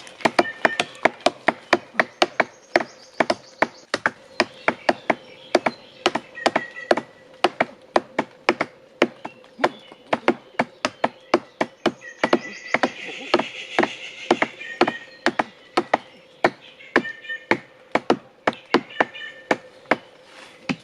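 Rapid chopping strikes on wood, about three blows a second, with faint bird chirps behind them.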